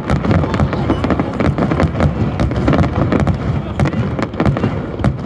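Fireworks finale: a rapid, dense volley of shell bursts and crackling, many bangs a second over a continuous rumble.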